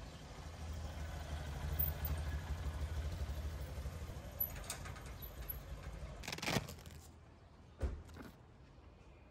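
Small motorcycle engine running at low speed as the bike rolls in, dying away about six seconds in. Two sharp knocks follow near the end.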